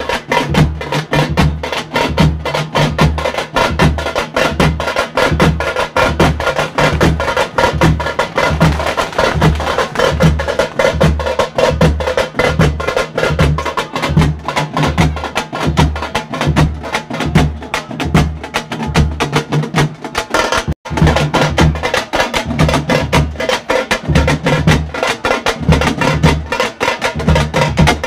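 Folk drum ensemble playing for a karagam dance: large barrel drums beat a steady low pulse under dense, fast strokes on frame drums. The sound cuts out for an instant about 21 seconds in.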